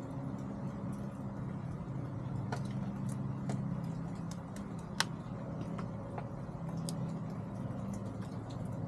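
Chickens pecking at feed: scattered sharp ticks and taps, one louder tap about five seconds in, over a steady low hum.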